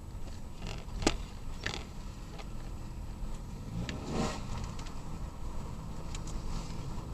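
Handling noises: a sharp click about a second in, then several short scrapes and a longer scrape near the middle, over a low steady rumble.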